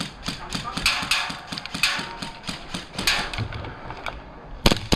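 Quick footsteps and rattling gear as an airsoft player scrambles into a new firing position, a rapid run of short knocks and clicks. Near the end come two sharp, loud cracks close together.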